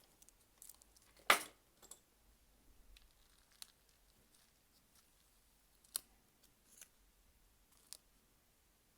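Scattered small clicks and ticks from handling a phone and small repair tools, with one louder, sharper snap about a second in.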